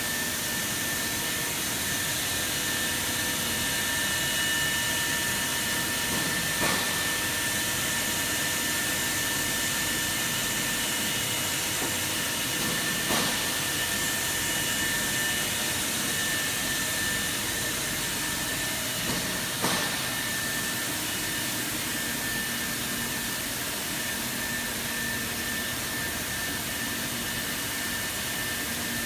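Bridgeport VMC800/22 vertical machining centre running under power: a steady hiss with a thin high whine, and a short click about every six and a half seconds, three times.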